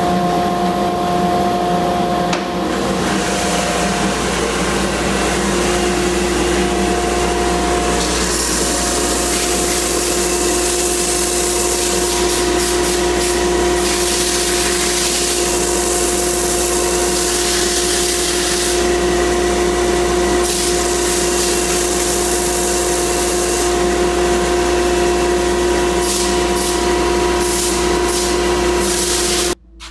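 Vertical belt sander running steadily, with a grinding hiss that swells in several stretches of a few seconds as the butt end of a wooden gunstock is pressed against the abrasive belt to square it. The sound cuts off abruptly near the end.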